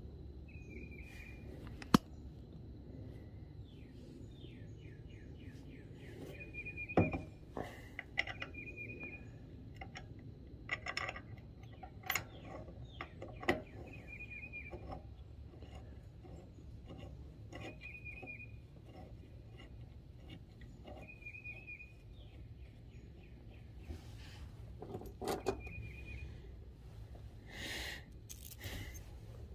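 Scattered sharp metallic clicks and taps as bolts and metal parts of a pressure-washer pump are handled and fitted by hand, the loudest about two seconds in. A bird chirps with short repeated calls every couple of seconds.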